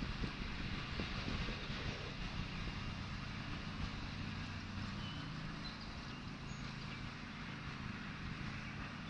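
A steady low hum over a faint even background noise, slowly easing off.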